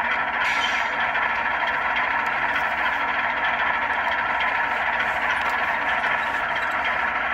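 Sound decoder in a ScaleTrains ES44 model locomotive playing a steady GE GEVO diesel engine sound through its small speaker as the model runs, with a brief hiss about half a second in.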